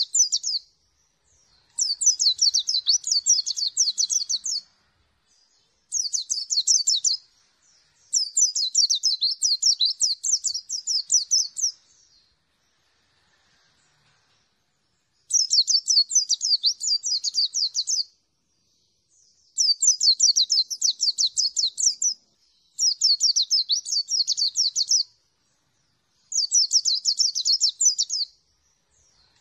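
Caged white-eye (pleci) singing in repeated bouts of rapid, high trilling chatter, each two to four seconds long with short pauses between, and a longer pause about halfway through.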